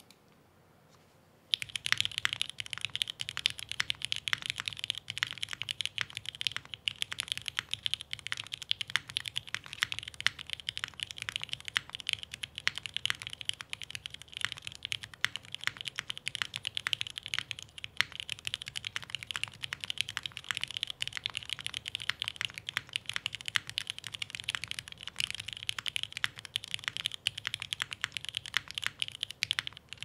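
Fast, continuous typing on a SingaKBD Unikorn R2.2 mechanical keyboard with lubed Cherry MX Black Hyperglide linear switches, an aluminium plate and GMK keycaps. It starts about a second and a half in.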